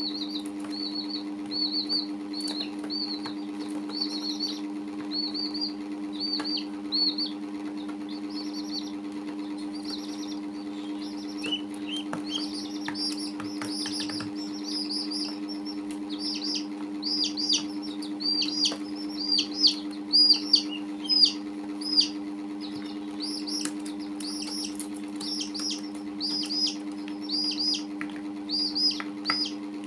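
Young chicks and a duckling peeping: short, high, repeated peeps that come thicker and louder from about twelve seconds in. A few sharp clicks and a steady low hum run underneath.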